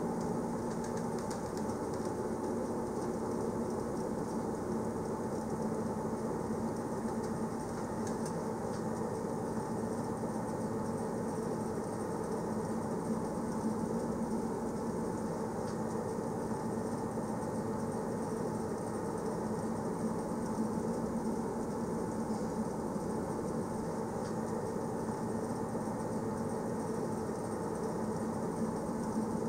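Passenger train running at a steady speed, heard from inside a carriage: an even rolling noise with a steady low hum and no sudden changes.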